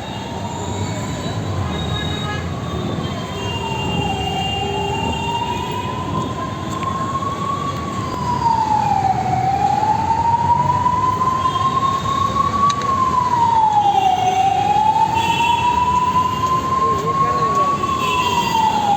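An emergency-vehicle siren wails over steady street traffic noise. Its pitch climbs slowly for a few seconds, then drops quickly, repeating about every five seconds. It grows louder about halfway through.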